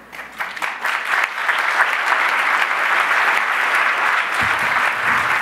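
Audience applause in a hall: a few scattered claps at first, quickly building within about a second into steady, dense clapping.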